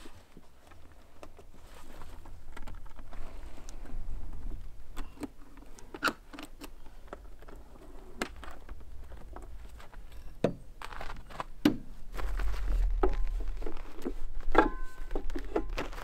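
Handling sounds of a hard-shell rooftop tent being folded shut on a Jeep: scattered clicks, knocks and scrapes as the shell and fittings are closed, with the loudest knocks about six seconds in and again after ten seconds.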